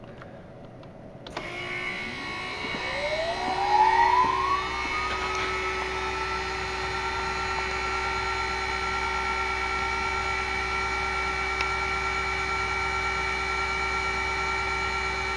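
Huanyang water-cooled CNC spindle, driven by a VFD, spinning up to 5,000 rpm: a whine starts about a second in and rises in pitch for a few seconds, then settles into a steady high whine and hum for the rest of the time.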